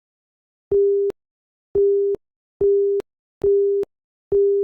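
Five computer-generated beeps from a C++ program's sound-effect calls, each a pure steady tone of the same mid pitch lasting under half a second, with a small click as each one starts and stops.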